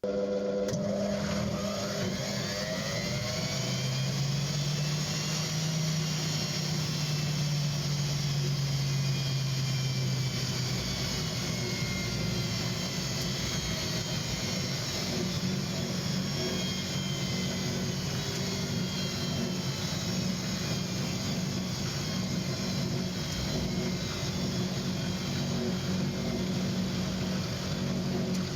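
Arçelik 2200 washing machine spinning, running on newly fitted shock absorbers: the motor whine climbs in pitch over the first several seconds as the drum spins up, then holds steady at spin speed.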